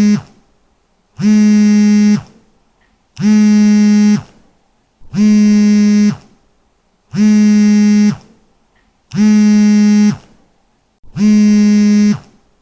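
Mobile phone vibrating in a steady repeating pattern: a low buzz just under a second long, then about a second of quiet, about every two seconds.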